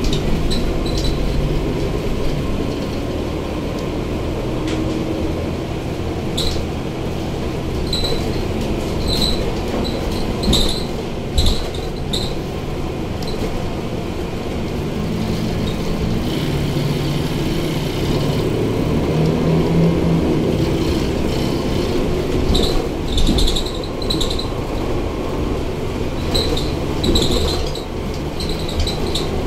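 Ride noise inside a Mercedes-Benz Conecto K articulated city bus under way: the OM470 diesel engine drones steadily under road and tyre noise, its note shifting as the bus speeds up and slows. Light rattles from interior fittings come and go.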